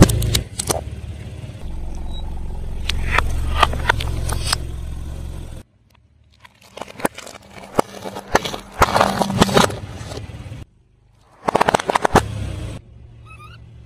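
A car tyre rolling over and crushing objects on wet pavement, a soft round fruit-like item and plastic-wrapped snack packets, with crackling, popping and squelching over a low engine hum. It comes in three short runs, each cut off abruptly.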